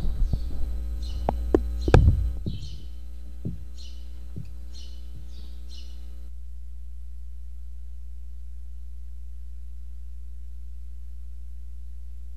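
Steady electrical mains hum on the microphone line, with handling knocks and clicks from the microphone over the first few seconds, the loudest about two seconds in. A bird chirps over and over until about six seconds in, when the other sounds cut out and only the hum is left.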